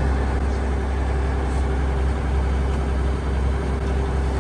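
An engine on board a boat running steadily: a constant low hum with a few steady tones above it.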